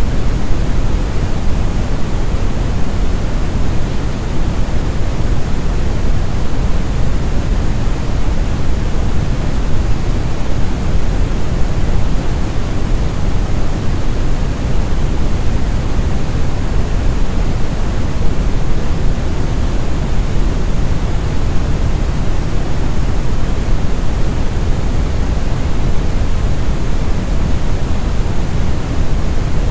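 Steady brown noise (Brownian or red noise): a smooth, deep rumbling hiss, strongest in the low end and thinning toward the treble, with no change or events.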